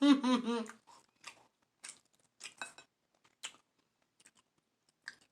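Eating sounds picked up close to the microphone: a handful of short, faint clicks and smacks, spaced about half a second to a second apart, after a brief word at the start.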